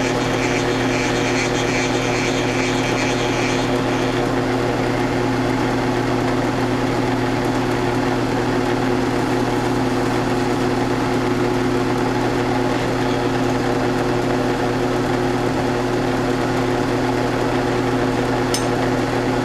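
Round-column mill-drill running steadily with an even motor hum while its spindle turns an edge finder. A faint higher hiss sits over it for the first few seconds.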